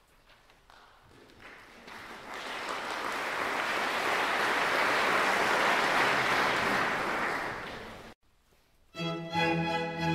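Applause swells up over a couple of seconds, holds, then cuts off suddenly about eight seconds in. A second later, string music led by a violin begins.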